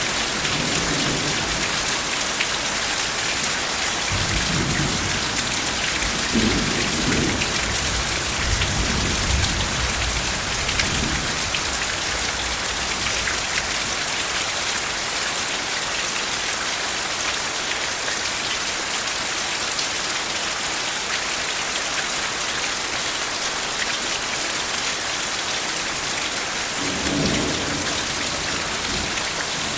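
Steady rain hiss with soft rolls of distant thunder, a low rumble for several seconds early on and another near the end.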